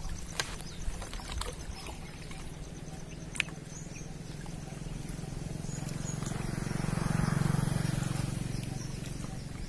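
A motor engine's low, steady drone passing by, swelling to its loudest about seven seconds in and then fading. A few sharp clicks come in the first few seconds.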